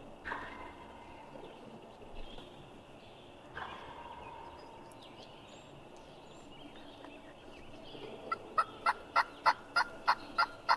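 Wild turkey gobbler gobbling twice, at the start and again about three and a half seconds in. Near the end a louder, evenly paced series of about eight turkey yelps follows.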